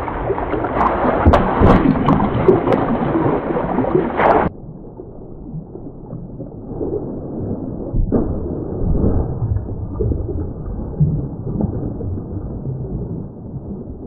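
Shallow forest stream running over rocks, with footsteps and splashes on wet stones and a few sharp knocks in the first seconds. It sounds muffled throughout, and more so from about four and a half seconds in.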